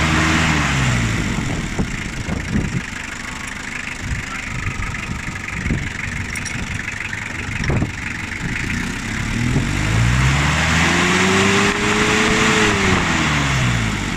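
Toyota 2C four-cylinder diesel engine idling with its injection pump timing being adjusted, dropping back from a rev at the start, then revved up and back down again in the last few seconds. A few sharp clicks sound over the idle in the middle.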